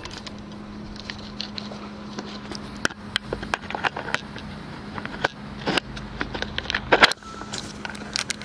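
Porsche 996 Carrera's water-cooled flat-six engine idling steadily just after a cold start, with scattered light clicks and knocks over it.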